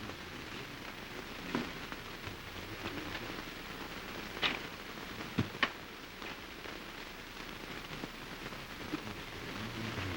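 Steady hiss and crackle of an old optical film soundtrack, with a few short sharp clicks scattered through it.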